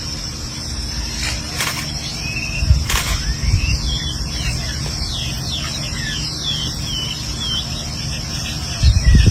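Outdoor ambience: a steady high insect-like drone over a low rumble, with a few sharp clicks early on. From about three and a half seconds in, a run of quick, high, rising and falling chirps follows.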